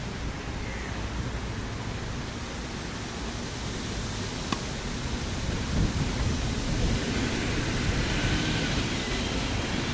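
Steady rushing background noise outdoors, with a single sharp pop about four and a half seconds in: a tennis racket striking the ball on a serve.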